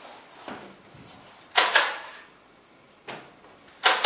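Wooden parts of a carved wooden cabinet knocking against the furniture as they are handled and set in place. There are several sharp wooden knocks: a loud double knock about a second and a half in, a lighter one about three seconds in, and another loud one near the end.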